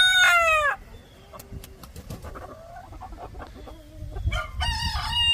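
Chickens: a rooster's crow ends with a falling tail just under a second in, soft clucks follow, and a second long crow begins about four seconds in.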